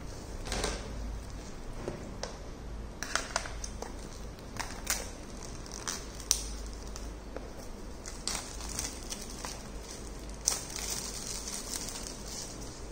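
A shrink-wrapped cardboard earbud box being handled and unwrapped: scattered taps and light rustles, then crinkling of the plastic wrap being pulled off from about ten seconds in.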